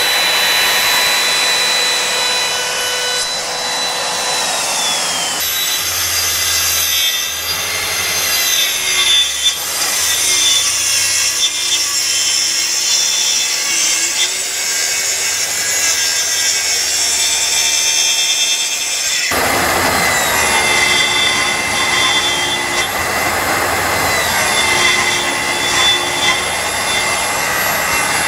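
Makita compact router running with a steady high whine as it routes a curve in MDF. About five seconds in, this gives way to a Festool track saw cutting through an MDF sheet, its whine dipping and recovering under load. About nineteen seconds in the sound changes abruptly again to another stretch of power-tool cutting.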